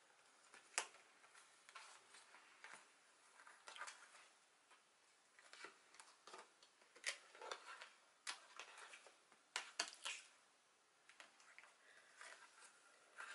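Faint handling of a cardstock scrapbook album: pages and fold-out flaps being turned and opened, giving scattered soft taps and paper rustles.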